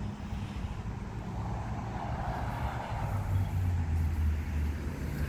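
Road traffic: a motor vehicle's low engine rumble, growing louder from about three seconds in as it comes closer.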